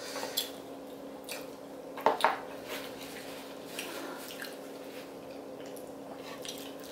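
Close-up eating sounds: wet slurping and chewing of spicy instant noodles and chewy rice cakes, with light clicks of wooden chopsticks against the dishes. The loudest moment is a pair of wet sounds about two seconds in.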